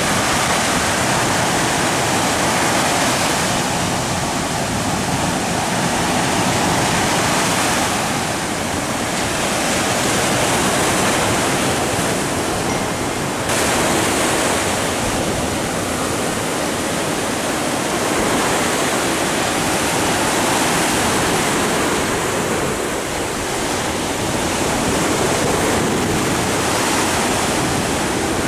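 Surf breaking on a rocky shore: a steady wash of waves that swells and eases every few seconds.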